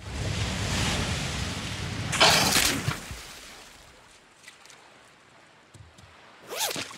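Rushing water of a breaking wave with a low rumble, then a loud splash a little over two seconds in that fades away over the next second or so.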